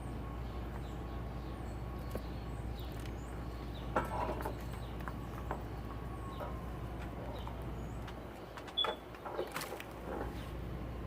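Small birds chirping faintly over a steady low hum, with a couple of brief clusters of rustling knocks, about four seconds in and again near the end.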